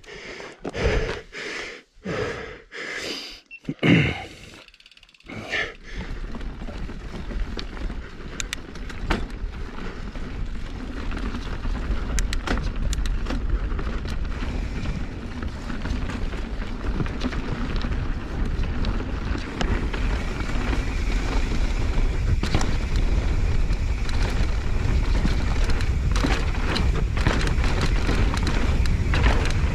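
Mountain bike rolling down a dirt singletrack: wind rushing on the microphone and tyre noise, slowly building as speed picks up, with scattered clicks and rattles. It opens with a few short knocks and handling noises as the rider sets off.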